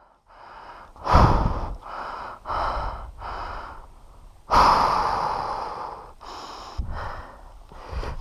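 A person breathing hard close to the microphone, a run of heavy breaths in and out with one long exhale about halfway through.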